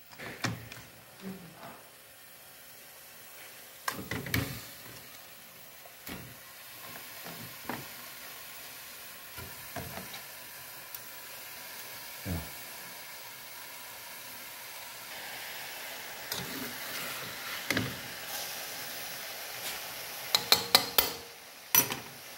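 Raw chicken pieces being handled in an aluminium pot on the stove, with scattered knocks, and a faint sizzling hiss that builds in the second half as the pot heats and the chicken starts cooking in its own juices. A quick run of sharp clicks comes near the end.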